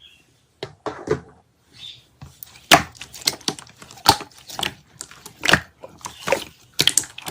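Slime being worked by hand, making irregular sharp clicks and crackling pops, about a dozen over the stretch.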